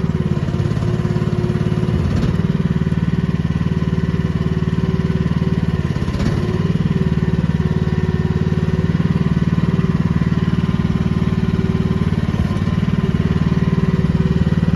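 Small gasoline engine of an AGT QH13R mini excavator running steadily, just started on choke. Its pitch dips briefly twice, about two and six seconds in.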